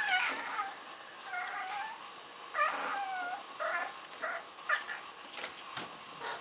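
Domestic cats squabbling: a series of about six short, bending meows and yowls, followed near the end by a few sharp taps or knocks.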